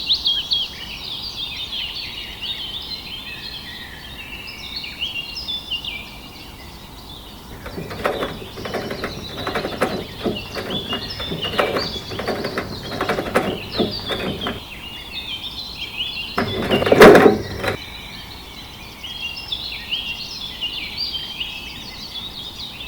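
Many small birds chirping and twittering throughout. Through the middle there is a run of irregular knocks and taps, and a louder short noise comes about seventeen seconds in.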